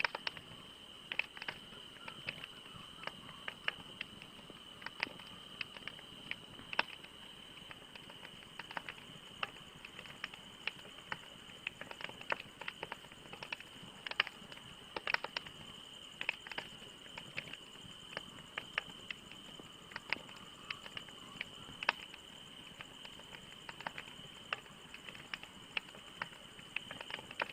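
Wood fire crackling, with irregular sharp pops and snaps over a low hiss. A steady high-pitched whine runs underneath.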